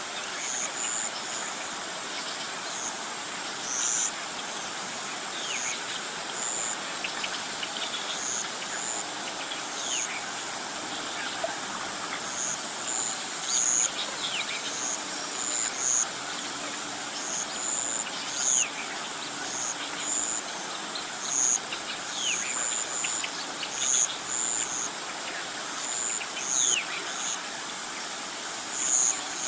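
Insects and birds calling together: short high chirps every second or two over a steady high hiss, with thin falling whistles in between.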